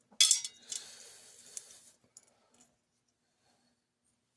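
A sharp metallic clink, then about a second of rustling handling noise with one more small click, as small parts are handled on a workbench.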